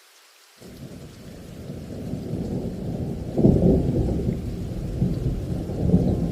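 Deep, rumbling roar of a large waterfall that cuts in suddenly about half a second in and grows louder over the next few seconds.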